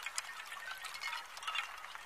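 Water trickling and dripping, with many small irregular plinks and clicks.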